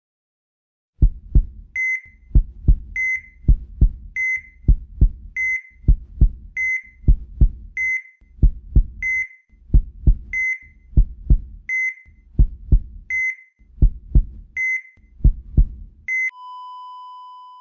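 Heartbeat thumping in double lub-dub beats about once a second, each beat matched by a short beep from a heart monitor. About two seconds before the end the beats stop and the monitor goes to a long unbroken flatline tone: the patient's heart has stopped.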